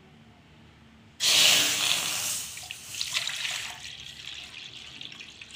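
Milk poured into an empty aluminium kadai, splashing onto the metal. The pour starts suddenly about a second in, is loudest at first, then settles to a quieter steady stream.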